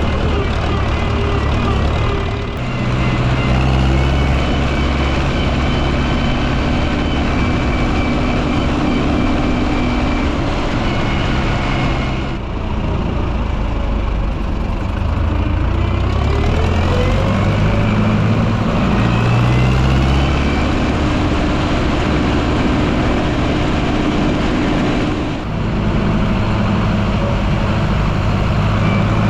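Zetor tractor engines running loudly, the engine note changing several times, with a rise in revs about halfway through.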